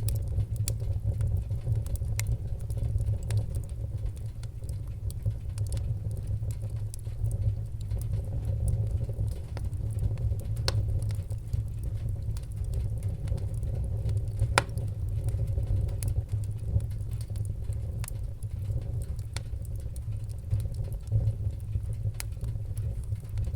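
Fireplace fire crackling: a steady low rumble of flames under scattered sharp pops and snaps, with one louder pop about halfway through.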